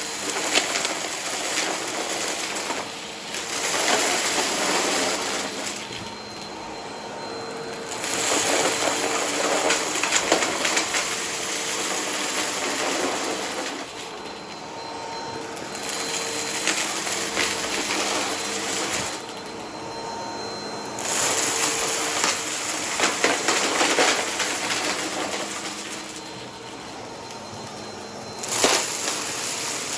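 Upright vacuum cleaner running and being pushed back and forth over crunchy debris, with crackling as the brush roll picks it up. The sound swells and falls with each pass, about every four to six seconds.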